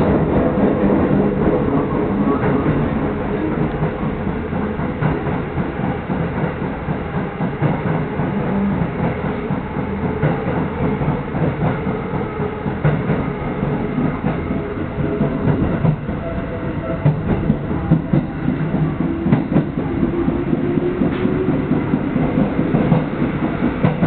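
Electric commuter train running, heard from inside the carriage. Its wheels rumble steadily on the rails, with sharper clacks over rail joints in the second half, and a motor whine that dips and then climbs again near the end.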